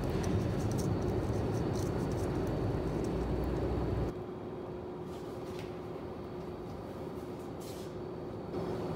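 Steady background rumble with a faint constant hum, like room tone with traffic outside, that drops suddenly to a quieter level about four seconds in and comes back up near the end, with a few faint ticks.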